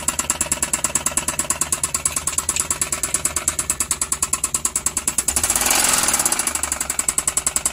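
Suzuki K6A three-cylinder engine running with a rapid, regular knock, briefly revved a little over five seconds in. A deep knock of the kind the mechanic puts down to the crankshaft and judges in need of an overhaul.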